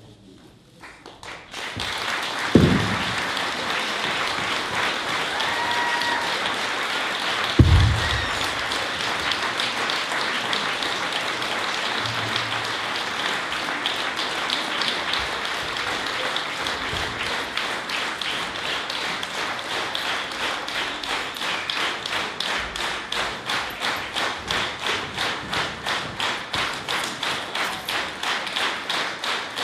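Audience applause breaking out as the singing ends, settling into rhythmic clapping in unison at about two claps a second through the second half. Two dull thumps stand out a few seconds in.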